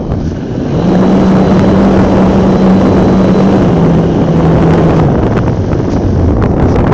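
Radio-controlled model airplane's motor and propeller running in flight, heard from a phone carried on the plane, with heavy wind rush over the microphone. A steady hum comes in about a second in, drops slightly in pitch and fades out around five seconds in.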